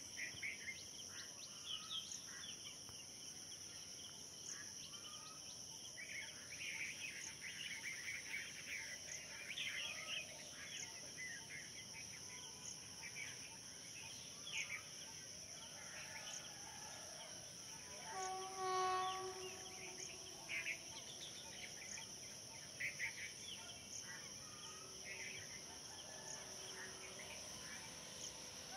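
Faint rural outdoor ambience: a steady high-pitched insect drone with many short bird chirps scattered throughout, and a brief, distant pitched tone about two-thirds of the way through.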